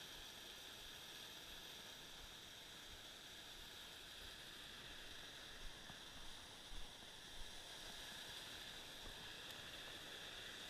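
Faint, muffled steady rush of creek water pouring over a small dam, dulled by a sealed waterproof camera housing, with a few soft bumps about halfway through.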